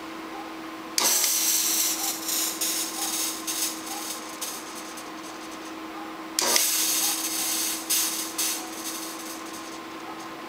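Fog machine jetting smoke in two hissing bursts, the first about a second in and the second about halfway through, over the steady hum of the computer's cooling fans.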